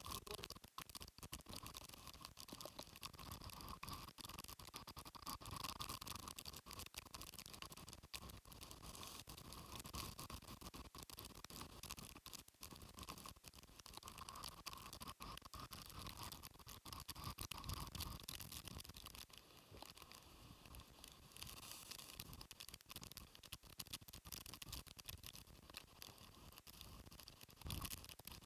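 Typhoon wind and rain hitting the microphone: a faint, dense scratchy crackle that rises and falls irregularly.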